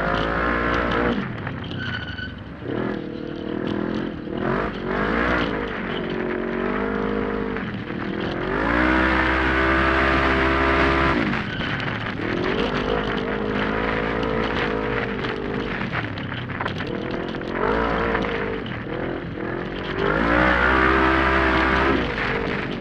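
A 1000 cc UTV engine racing, heard from on board: the revs repeatedly climb and drop as the throttle is worked through the turns, with two long full-throttle pulls about nine and twenty seconds in. Scattered knocks are heard throughout.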